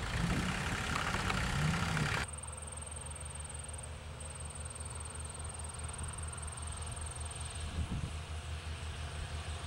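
Tractor engines running. First a compact tractor pulling a trailer past, then, after a sudden cut, a low, evenly pulsing engine rumble from a tractor approaching along the road that slowly gets louder.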